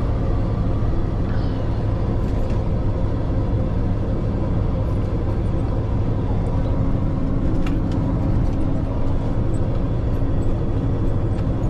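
Scania log truck's diesel engine running at steady revs in a low gear, holding a loaded truck back on a downhill run. It makes an even drone with no change in pitch.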